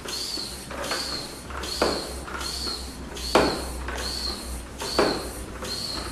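Hand floor pump inflating a tubeless bicycle tyre: a hiss of air with each stroke, a little more than one stroke a second, with a few sharper clacks from the pump.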